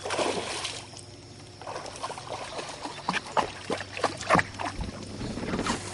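Water splashing at the surface in short, irregular bursts over a steady low hum from the boat.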